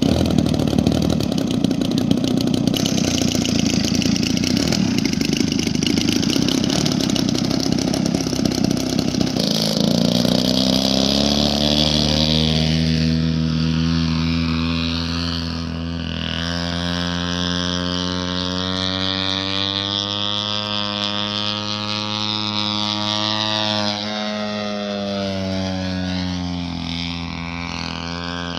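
Large-scale radio-controlled aerobatic plane's two-stroke petrol engine, rough and close for about the first ten seconds, then a steady buzzing drone whose pitch rises and falls slowly as the plane flies and the throttle changes.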